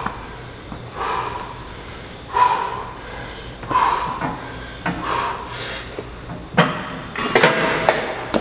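A strongman breathing hard, a forceful exhale about every second and a half as he braces for a lift. From about six and a half seconds in come several knocks and scuffs as he picks up the heavy implement and brings it to his shoulder.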